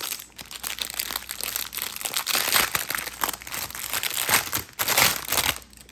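Packaging crinkling and rustling as it is handled and opened to get the next fidget toy out, irregular and dense, stopping just before the end.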